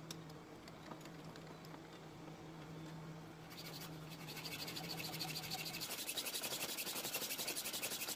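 Hacksaw blade sawing a metal bar clamped in a bench vise. It starts about three and a half seconds in as fast, even rasping strokes that grow louder, after quieter handling of the saw.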